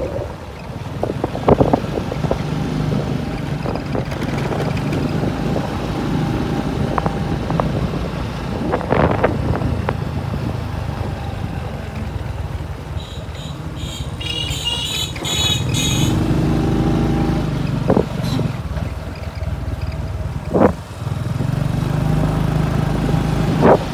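Small motorcycle's engine running steadily while riding, with road rumble and a few short knocks. Partway through, a brief high, rapidly pulsing tone sounds over it.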